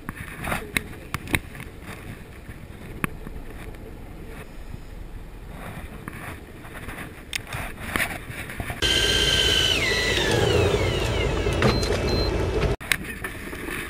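Light clicks and knocks of tackle over the wash of water against a boat, then a Shimano Dendou-maru Plays 3000 SP electric fishing reel's motor whining as it winds in line, its pitch dropping about a second after it starts; the sound cuts off near the end.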